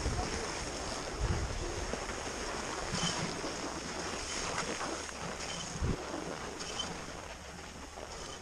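Skis sliding and carving on groomed snow, a steady hiss with short scraping edge sounds, and wind buffeting the microphone with a few low thumps.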